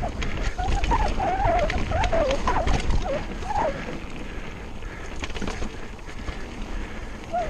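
Mountain bike running fast down a dirt trail, heard from a handlebar camera: a heavy rumble of wind on the microphone and tyres on dirt, with frequent knocks and rattles from the bike over roots and bumps. For a few seconds in the first half a wavering pitched sound rises and falls over the top.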